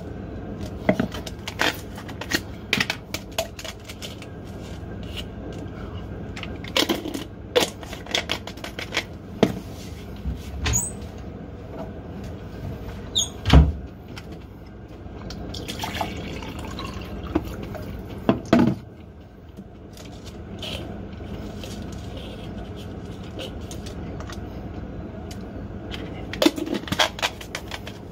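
Water running into a container as it fills, with scattered clicks and knocks of handling and one sharp knock about halfway through.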